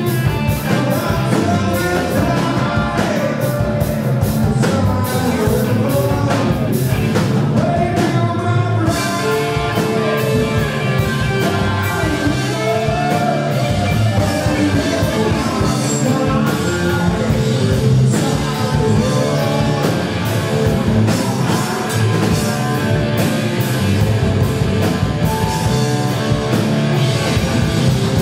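Live rock band playing loud and continuous: electric guitars and a drum kit keeping a steady beat, with a male lead singer.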